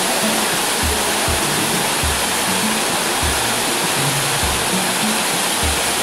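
Steady rushing of a waterfall, with short low notes of background music, about two a second, beneath it.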